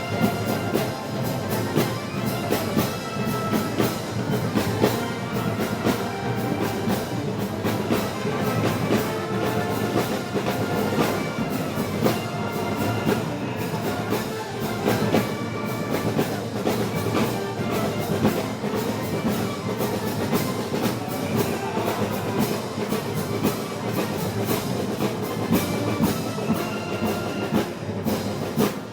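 Band of brass and percussion playing festival parade music, with a steady, evenly repeating drum beat.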